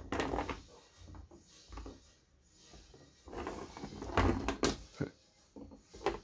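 Hard plastic toy soldiers clattering against one another and knocking down onto a board as they are picked from a pile and stood upright, in irregular bursts with the loudest clatter about four seconds in.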